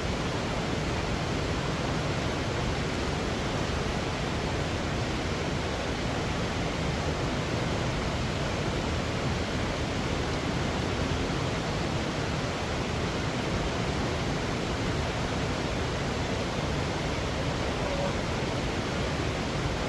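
River water rushing, a steady even hiss and rumble with no change.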